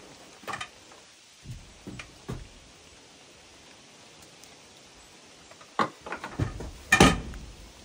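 Scattered light knocks and clunks of things being handled, with a cluster of knocks near the end and one louder thud among them.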